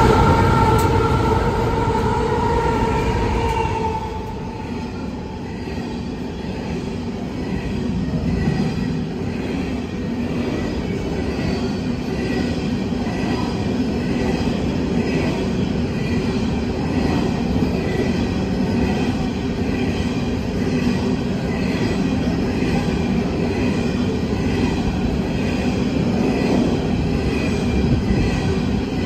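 Freight train passing close by. The locomotives go past first with a steady pitched whine that fades over the first few seconds, then a long string of coal hopper wagons rolls by with a steady rumble and clatter of wheels on the rails and a faint high wheel squeal.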